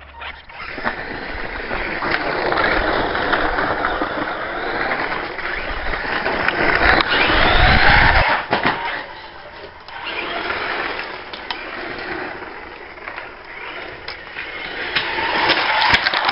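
Electric RC buggy running on pavement and gravel, its motor whining up and down in pitch as it accelerates and slows, with tyre and grit noise. Loudest in the middle, easing off after about ten seconds and building again near the end.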